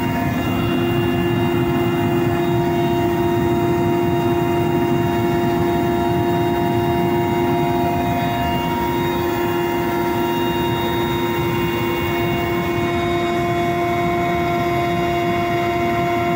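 Loud, steady cabin noise of a Mil Mi-8-family transport helicopter in cruise flight: a constant turbine whine of several steady tones over a dense low engine and rotor noise.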